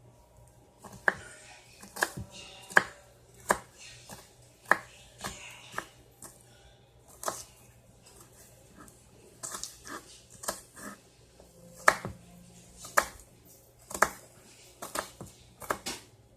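Knife chopping on a cutting board: single sharp knocks roughly once a second, pausing for a few seconds midway before resuming, over a faint steady hum.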